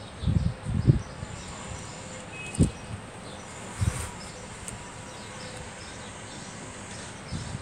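Cardboard sleeves of 12-inch vinyl records being flipped forward one by one in a plastic crate, giving dull knocks a couple of times near the start and then about every second or so, over a steady outdoor hiss.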